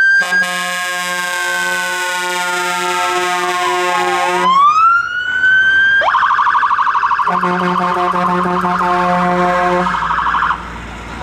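Fire engine siren wailing, slowly falling and rising, with a long horn blast over it; about six seconds in the siren switches to a fast yelp and the horn sounds again. Everything cuts off shortly before the end.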